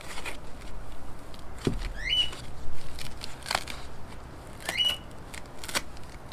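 A few sharp knocks and taps from handling foam and the battery box, with a bird calling twice: each call a quick rising whistle that levels off on a high held note.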